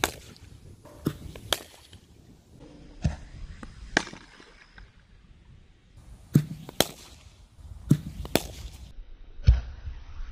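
Cricket bat striking balls in a practice net: about ten sharp cracks, several in pairs about half a second apart.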